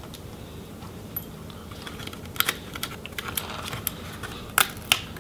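Light, scattered clicks and taps of a small screwdriver and fingers handling a laptop's plastic palm rest frame, with two sharper clicks near the end as the screwdriver goes onto a small screw.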